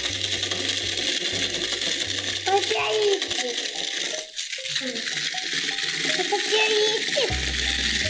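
Remote-control toy spider walking on a wooden tabletop, its plastic legs and gear motor making a continuous rattling clatter. The sound breaks off for a moment about halfway through.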